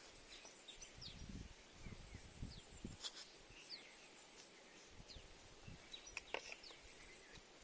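Faint outdoor ambience with scattered small bird chirps, each a short call sliding downward, plus a few soft low thuds in the first few seconds.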